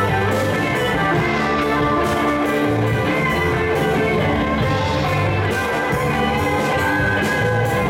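Live band playing amplified music on electric bass, electric guitars and keyboard, loud and steady.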